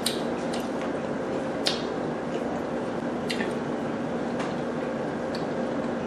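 Scattered soft, wet clicks and squishes of buttery food being handled and eaten, a few times over the stretch, over a steady low background hum.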